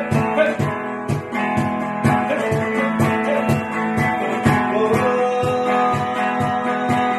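Electric guitar playing the intro of a worship song over a steady drum beat of about three low thumps a second with ticking cymbals.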